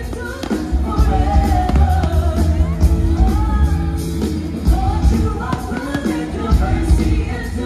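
Music with a singing voice over heavy bass.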